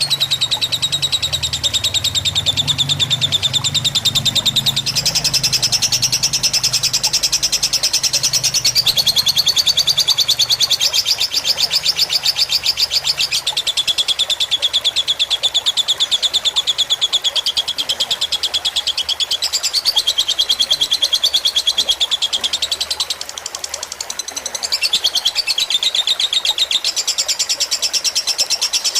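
Lovebird singing one long, unbroken, very fast high trill, its pitch shifting every few seconds and dropping off briefly near the end: the long continuous song prized in 'fighter' lovebirds.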